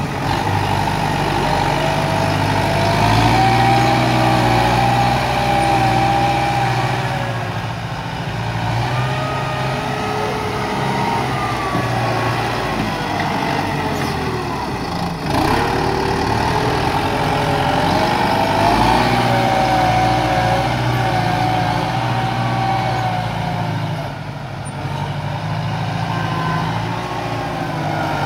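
Kubota M9540 tractor's four-cylinder diesel engine working under load while grading soil, its note rising and falling with the load, with a brief sudden drop about halfway through.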